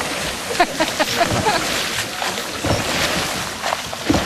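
Water rushing and splashing around a wooden sampan moving up a fast, shallow stream, with wind on the microphone. A few short pitched calls come about half a second in, and scattered knocks run through.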